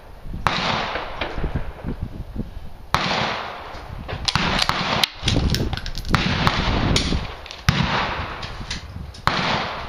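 Rifle and gun shots on a shooting range firing line: a loud shot every second or two, each followed by a long echo, with fainter pops between.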